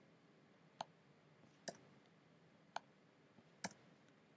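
Four sharp clicks about a second apart, from a computer mouse and keyboard, against a quiet room.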